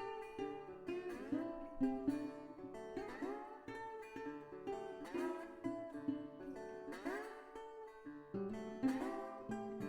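Background music: strummed acoustic guitar chords in a steady rhythm, about one strum a second.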